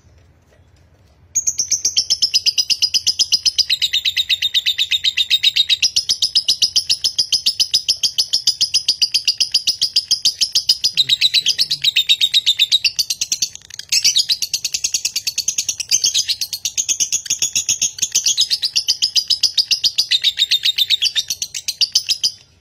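Lovebird's long 'ngekek' chatter: a rapid, unbroken string of high chirps that starts about a second in. It breaks off for a moment just past halfway, then runs on until just before the end. This long nonstop chatter is the 'konslet' (short-circuit) style prized in Indonesian lovebird song contests.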